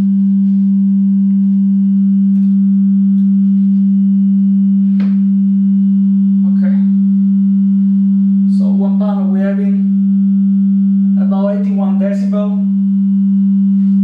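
A steady, loud 196 Hz sine test tone from a signal generator, played through a loudspeaker into the room. It holds one pitch throughout. 196 Hz is a room-mode frequency, used here to measure how much a tuneable Helmholtz wood absorber reduces that mode.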